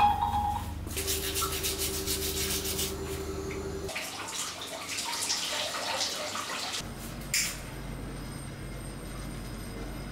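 Water running in a tiled bathroom shower, with rubbing and scrubbing sounds, and one sharp click about seven seconds in.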